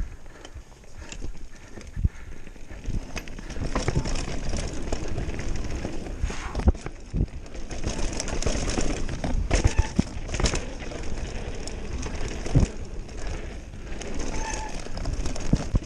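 Mountain bike riding fast down a dirt trail: tyres running over dirt with rattling from the bike and sharp knocks over bumps, several of them loud. Wind buffets the microphone throughout as a low rumble.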